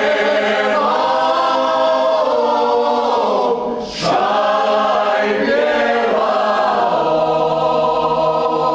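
A small folk vocal group singing a traditional Croatian song unaccompanied, in long held chords, with a short break for breath about four seconds in.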